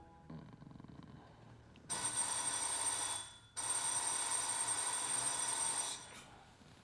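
Telephone bell ringing: two rings with a short gap between them, the second one longer.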